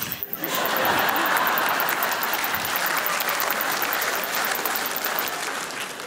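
An audience in a large hall applauding, starting just after the opening and fading near the end. Under it runs a recording of an April green cicada's very high-pitched, rapidly pulsing song played over the speakers, a call only young ears can hear, which stops about five seconds in.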